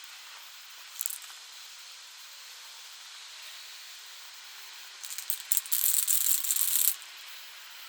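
Yellow paint being sprayed: a short hiss of spray about a second in, then a steady spray hiss of about two seconds from about five seconds in that cuts off.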